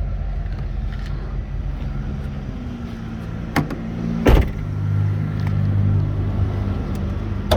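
Chevy 8.1-litre (496 cubic inch) V8 idling steadily with a low hum. A couple of knocks come about three and a half and four seconds in, the second the loudest, and a click near the end.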